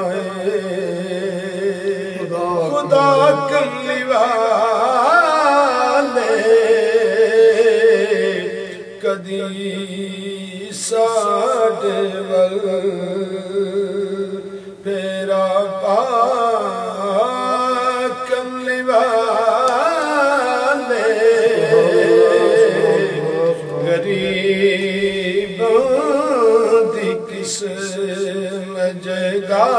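A man singing Sufi verse in a slow, wavering chant with long drawn-out notes, in phrases with short breaks between them.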